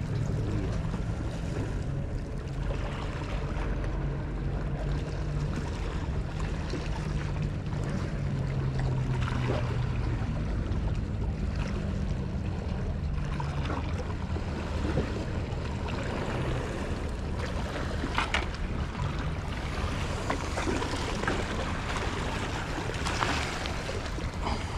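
Sea water washing and lapping against shore rocks, with wind on the microphone. A low steady hum sits under it through the first half and fades out about halfway through.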